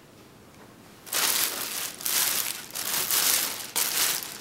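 Packing material in a shipping box rustling and crinkling as it is handled and pulled aside, in several long swells starting about a second in.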